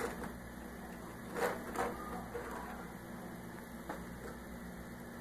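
A fork and a toasted sandwich being lifted off a ribbed non-stick sandwich-grill plate: a few soft knocks and scrapes, the loudest pair about a second and a half in, over a steady low hum.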